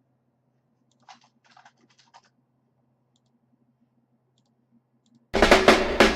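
A few faint clicks over a low electrical hum, then about five seconds in Discord's remixed incoming-call ringtone starts loud: a beat with drums and bass under a melody.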